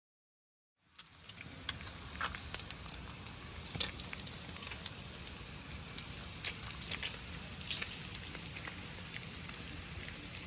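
Bacon frying on a gas flat-top griddle in the rain: a steady sizzle with scattered sharp pops and crackles. It starts abruptly about a second in.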